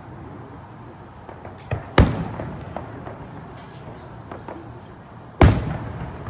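Fireworks shells bursting: two loud bangs, about two seconds in and near the end, each trailing off as it echoes, with a smaller crack just before the first and faint crackles between.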